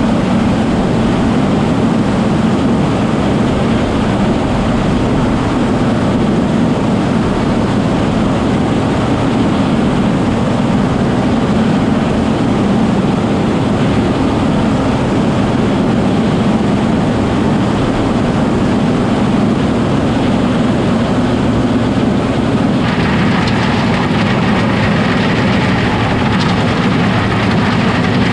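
Combine harvester running steadily with a low engine hum. Near the end a brighter, higher hiss joins it.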